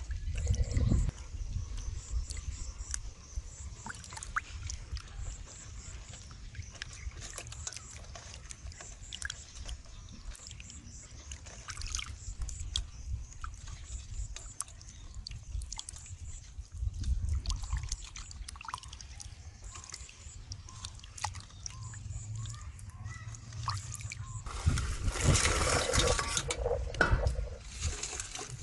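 Water sloshing and splashing in a steel bowl as hands scrub raw blue crabs, with small clicks of shell knocking on shell and on the bowl. A louder stretch of splashing comes near the end.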